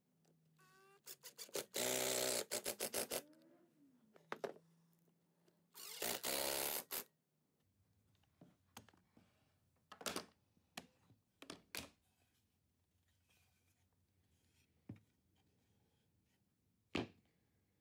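Cordless drill-driver driving pocket-hole screws into plywood in two runs of about a second or so each, the first starting with short trigger blips and a rising whine as the motor spins up. Later, a few scattered clicks and knocks as the clamps and boards are handled.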